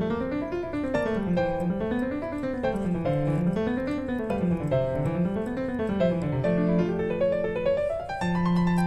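Background piano music, with quick runs of notes climbing and falling over and over.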